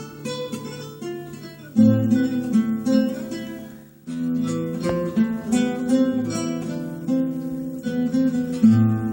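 Acoustic guitar playing a slow enka introduction: plucked melody notes ringing over strummed chords, with strong attacks about two seconds and four seconds in.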